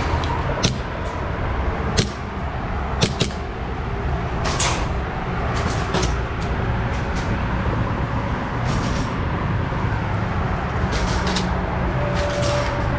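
Steady rain and wind noise, with about a dozen sharp clicks and pops scattered irregularly through it, two of them in quick succession.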